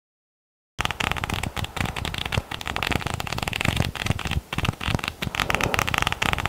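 Paper pages of a flipbook riffling rapidly off the thumb: a dense, fast run of papery clicks that starts about a second in.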